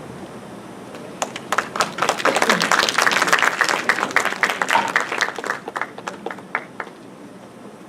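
Audience applauding: a few claps about a second in build into full applause, which then thins out and dies away by about seven seconds.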